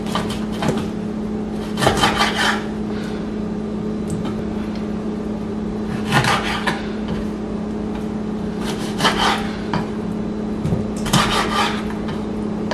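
Kitchen knife cutting raw chicken wings in two on a wooden cutting board: about four short bouts of the blade rasping through the wing and scraping against the wood, over a steady low hum.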